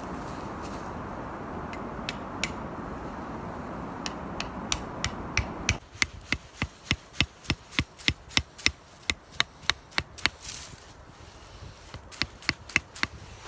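A tool striking wood in quick, regular knocks, about three to four a second, pausing briefly and resuming near the end. A steady rushing background stops abruptly about six seconds in.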